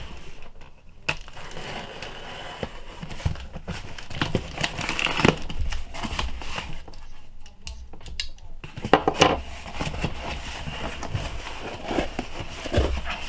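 A knife slitting strong packing tape on a cardboard shipping box, the cardboard flaps scraping and folding open, then plastic air-pillow packing crinkling near the end.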